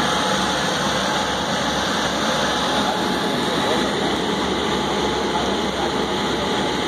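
Busy railway platform ambience: many people talking indistinctly over a steady engine hum.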